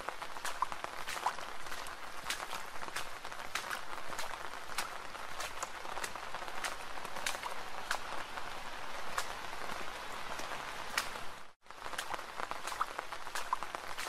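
Soft, steady rain: an even hiss with many separate drops ticking on a surface. The sound cuts out for a moment about eleven and a half seconds in, then carries on the same.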